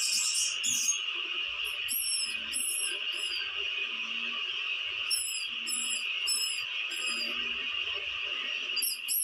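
A small animal's high-pitched squeaks in three quick runs of about four, over a steady hiss.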